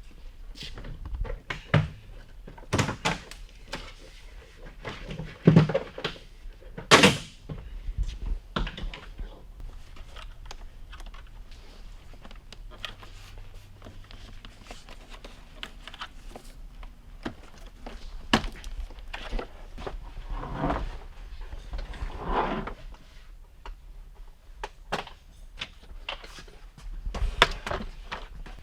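Irregular thunks, knocks and clicks of hand work on a car as parts are handled and fitted, with the loudest knocks about five and a half and seven seconds in.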